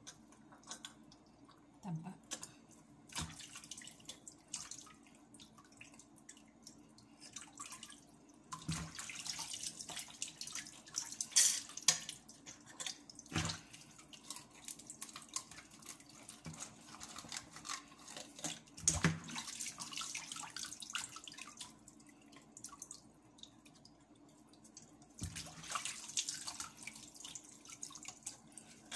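Water splashing and trickling in a kitchen sink in spells as a whole fish is gutted and rinsed by hand, with a few sharp knocks against the sink or basin.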